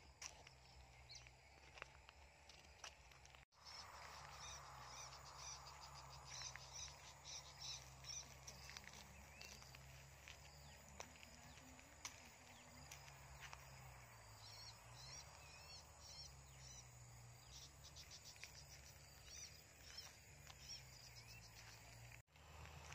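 Faint farmland ambience: small birds chirping in quick runs of short repeated calls over a steady insect drone and a low hum. The sound cuts out briefly twice.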